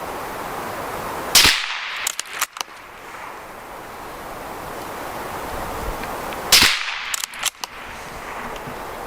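Two suppressed .22 LR shots from a CZ 455 bolt-action rifle firing CCI Stinger rounds, about five seconds apart. Each shot is followed within a second by a few sharp metallic clicks of the bolt being worked to chamber the next round.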